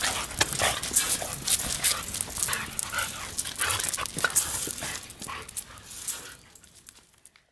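A Siberian husky and a Shiba Inu play-fighting on leashes: a quick run of short dog vocalizations over scuffling noise, fading away in the last second or so.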